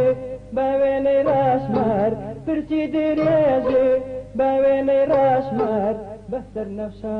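A man singing a Kurdish folk song in long, wavering held phrases over a small band.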